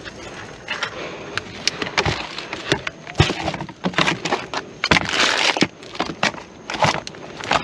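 Sacks of produce being handled and loaded: rustling plastic with many sharp knocks and thuds, loudest about three and five seconds in.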